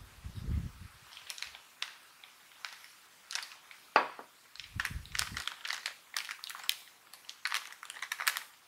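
A Clover Chips snack bag being handled and crinkled, giving a run of irregular crisp crackles with a sharp click about four seconds in. Low handling bumps come at the start and about five seconds in.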